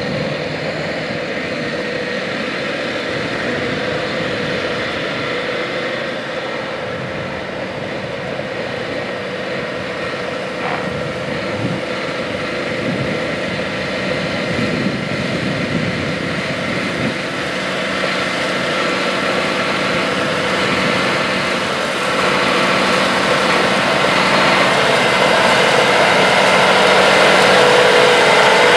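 John Deere 8RX 370 four-track tractor's diesel engine running steadily as the tractor drives, growing gradually louder over the second half as it comes closer.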